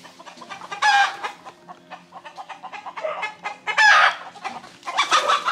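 Chickens and roosters clucking in a yard, with two loud calls, one about a second in and one about four seconds in, and more clucking near the end.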